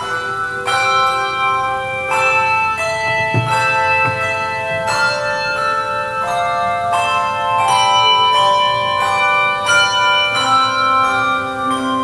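Handbell choir playing: chords of tuned handbells struck in steady succession, each ringing on and overlapping the next.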